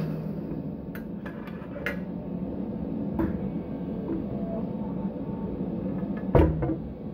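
Hot riveting a red-hot steel rivet under a riveting press die: a steady machine hum with a few light metallic clicks as the glowing rivet is set in place, then one loud knock a little past six seconds in as the die squashes the rivet.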